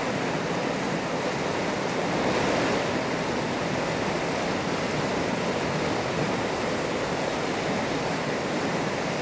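Steady rush of fast-flowing canal water churning around an elephant wading chest-deep in it.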